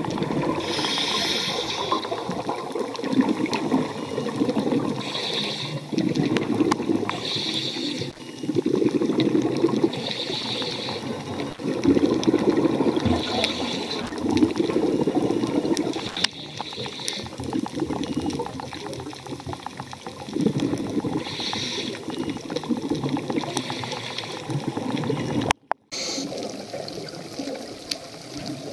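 Water sloshing and splashing in surges that swell every second or two, with a brief drop-out near the end.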